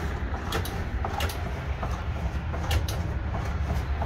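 Inside the cab of a 1970 Chevrolet step van with the truck running: a steady low rumble with sharp clicks and rattles over it.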